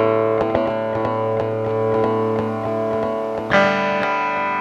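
Guitar played through a mixer's built-in effect: plucked notes ringing on, then a loud strummed chord about three and a half seconds in. The effect was set for distortion, but the player finds it comes out as some other sound.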